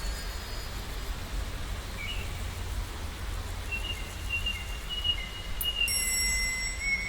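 Edited sea-and-nature sound effect: a steady low rumble under a faint hiss, with long, high, whistle-like tones that drift slightly in pitch coming in about two seconds in, and higher chime-like tones added near the end.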